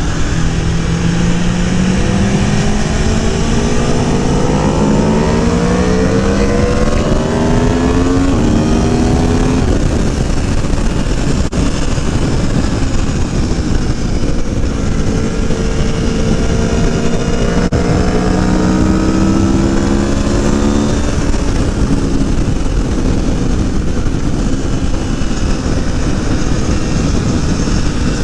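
Aprilia Tuono V4 Factory's V4 engine pulling hard under acceleration, its note rising in two long climbs, each ending in a drop in pitch, over a constant rush of wind noise on the helmet-mounted camera.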